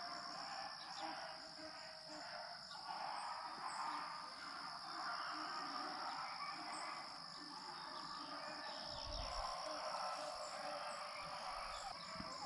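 Rabbit dogs baying faintly in the distance as they run a rabbit, their voices drifting away, over a steady high-pitched hum.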